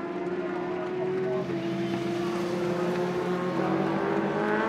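Several racing superbike engines at high revs, a steady pitched engine drone from a pack of bikes. About three and a half seconds in, one engine note rises as a bike accelerates.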